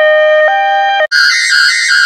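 Two-tone hi-lo ambulance siren, switching between two pitches about every half second. About a second in it cuts off and is replaced by a higher-pitched, harsher, sped-up digitally altered version that warbles between its two notes several times a second.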